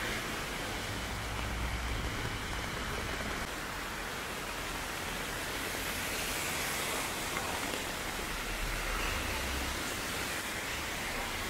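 Heavy rain falling on wet pavement, a steady hiss. A low rumble comes in twice, about a second in and again near nine seconds.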